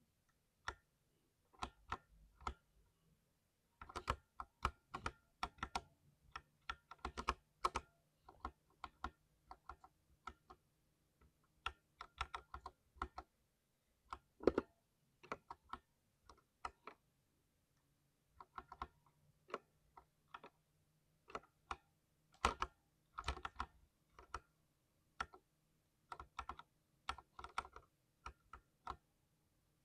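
Typing on a 60% mechanical keyboard: quick runs of crisp key clicks and clacks in irregular bursts, with short pauses between them.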